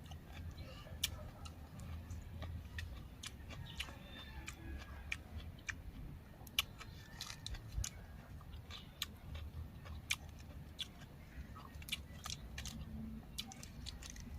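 A person chewing raw vegetables close to the microphone: irregular crunching and mouth clicks, several a second at uneven intervals.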